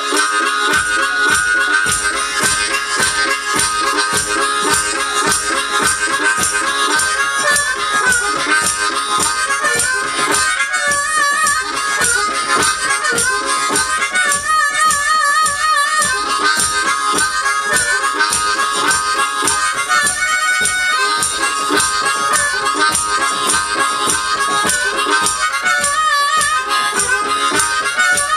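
Music: a harmonica playing a reedy melody over a steady, driving beat.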